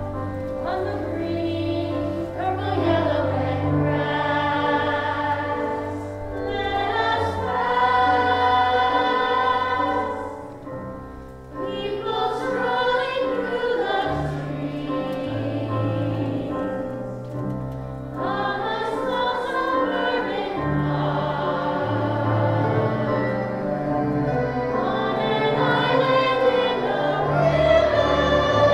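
Music: voices singing a slow song over instrumental accompaniment, in long held phrases, with a short break about eleven seconds in.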